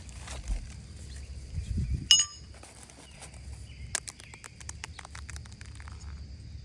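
A bird gives a short sharp chirp about two seconds in over a steady high-pitched insect drone, followed by a run of quick clicks and taps.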